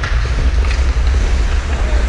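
Wind buffeting a helmet-mounted GoPro's microphone as the wearer skates: a steady, loud low rumble.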